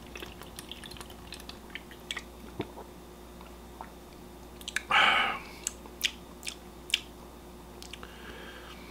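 A man swallowing water from a can, with small wet mouth clicks. About five seconds in comes a short breath out, then a few sharp lip smacks as he tastes the water.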